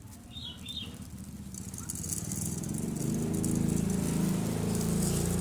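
Birdseed rattling as it is poured or shaken into a bird's feeding cup, a dense grainy rattle that starts about a second and a half in and grows louder.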